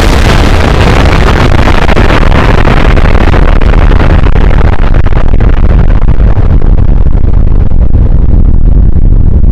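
Very loud explosion sound effect: a continuous deep rumble with a hiss over it that slowly dies away while the rumble goes on.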